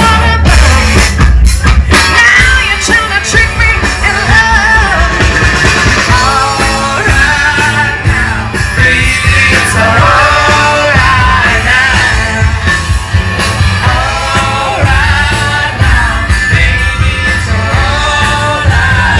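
Rock-style music with a singing voice and a strong bass beat.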